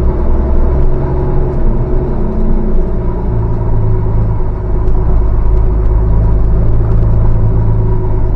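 Saviem S45R coach's diesel engine running as the coach is driven slowly round a roundabout, heard from the driver's seat; its note shifts lower about three seconds in.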